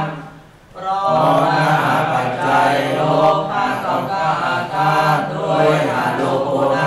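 Pali text being chanted in a steady monotone recitation, with a short pause for breath about half a second in.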